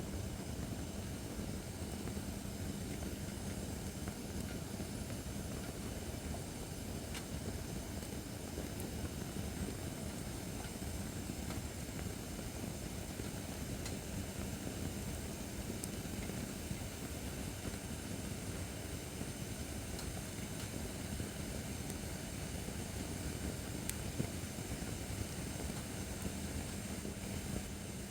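Acacia firewood burning in a fire pit: a steady rush of flames with a few faint, sharp crackles scattered through, over a low steady hum.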